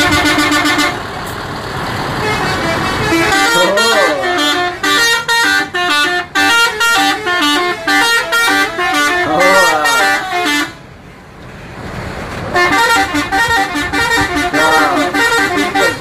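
Indonesian bus 'telolet' horns: multi-tone musical horns playing quick tooting tunes. A held chord at the start gives way to runs of short stepped notes, with a lull of about two seconds after the middle before the tooting resumes.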